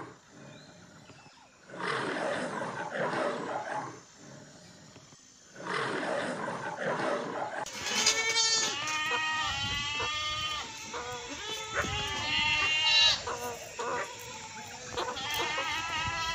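First, a lion roaring, in two rough bursts of about two seconds each with short pauses between. Then, about eight seconds in, a large herd of goats bleating, many calls overlapping.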